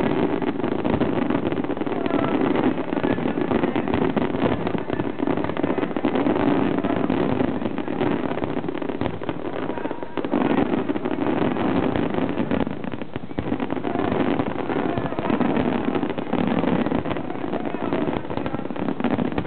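Fireworks display: a dense, continuous rumble of many shells bursting at once, with fine crackling throughout and a dip in intensity about halfway through.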